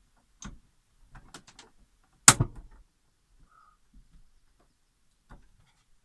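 Sharp clicks and light knocks at uneven intervals, the loudest a single sharp click about two seconds in, as the gas burner of an RV absorption fridge is being lit.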